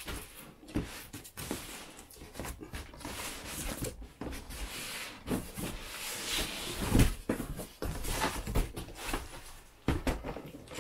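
Cardboard cartons being handled: an inner box worked out of an outer shipping carton, with cardboard scraping and rubbing and a run of knocks, the loudest about seven seconds in.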